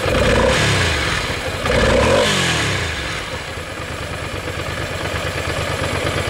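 Ducati Monster 400's air-cooled V-twin on its stock exhaust, standing still. It is blipped twice, once at the start and again about two seconds in, each rev falling back, and then it settles to a steady idle.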